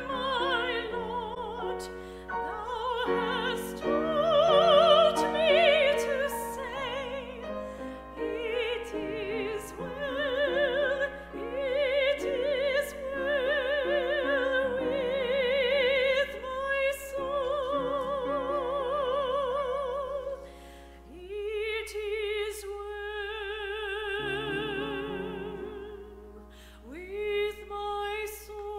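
A woman singing a solo in a classical style, with a wide vibrato on long held notes over a quieter accompaniment.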